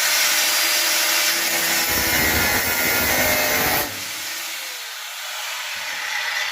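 Power drill with a wire brush attachment scouring rusty sheet metal, a loud steady scraping that stops suddenly about four seconds in, leaving a quieter whir.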